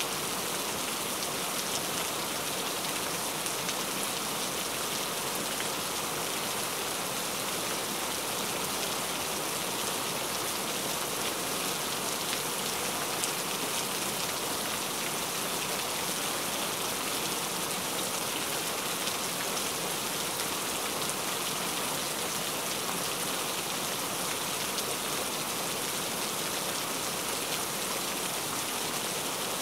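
Heavy rain falling steadily: a dense, even hiss of drops that does not let up.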